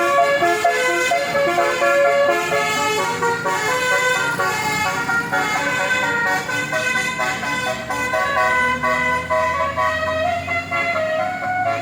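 A bus's Basuri telolet musical air horn playing a tune in quick stepped notes. A bus engine's low drone grows louder in the second half.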